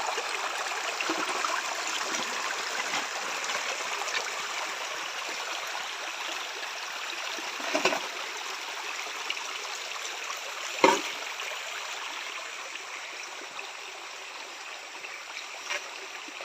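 Flowing water of a small river running steadily, with two short, sharper sounds about eight and eleven seconds in.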